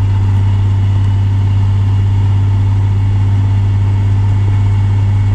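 Nissan 300ZX (Z32) 3.0-litre V6 engine running at steady revs while the car cruises, heard from inside the cabin as a steady low drone over road noise.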